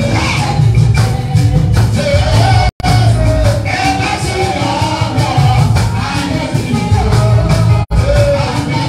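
Music with a singing voice carrying a wavering melody over a heavy bass line and a steady percussion beat. The sound cuts out completely for an instant twice.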